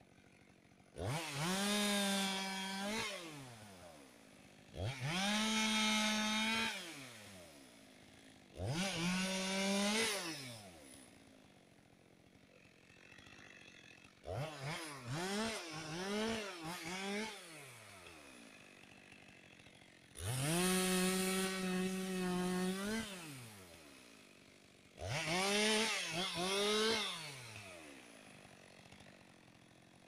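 Two-stroke chainsaw revved to full throttle in six short bursts of about two seconds each, dropping back to idle between them as it makes short cuts through wood. In the middle burst the throttle is blipped several times in quick succession.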